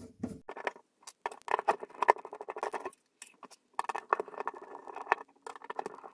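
Small screws being worked out of the floppy disk drive's metal chassis to free its bottom cover: scratchy clicking and scraping of tool and metal in three bursts with short gaps.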